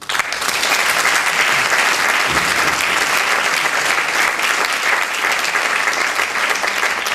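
Audience applauding in a theatre hall, breaking out all at once and holding steady, thinning out near the end.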